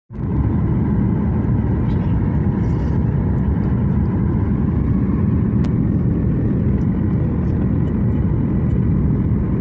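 Airliner cabin noise: the steady, loud rumble of the jet engines and rushing air heard from inside the cabin, with a faint steady whine above it.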